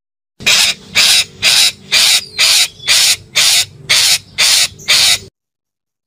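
Red-breasted parakeet giving a run of ten loud, harsh calls, about two a second.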